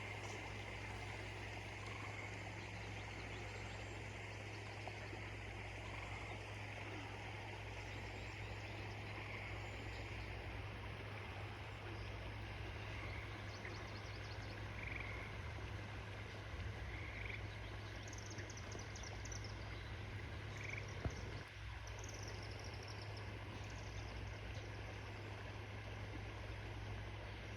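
Backyard waterfall running steadily, with a steady low hum underneath. Scattered short chirps from small animals, likely frogs, come mostly in the second half, along with a single sharp click about three-quarters of the way in.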